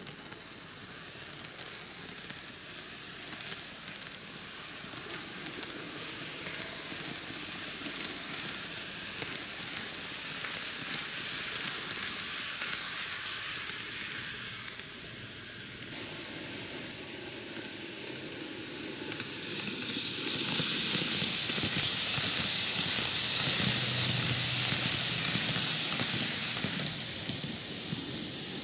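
N-gauge Micro Ace Keio 9000 series model train running on the track: a steady hissing rattle of small wheels on the rails with fine clicks, getting louder about two-thirds of the way through.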